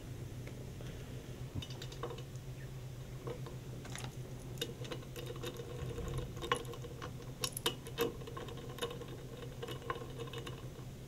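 Light metallic clicks and taps of shaft-mount rocker arm parts being handled and set onto a cylinder head, scattered and irregular, coming more often in the second half, over a steady low hum.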